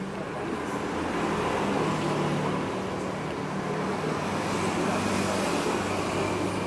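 Steady low engine-like drone of a running vehicle, with a hiss that grows louder about five seconds in.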